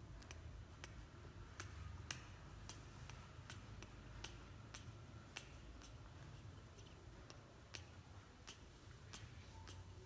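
Faint sharp clicks, roughly one every half second or so, over a low steady hum.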